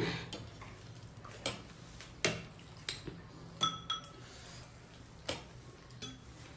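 Cutlery clinking against a plate while eating: scattered single clinks, a couple of them near the middle ringing briefly.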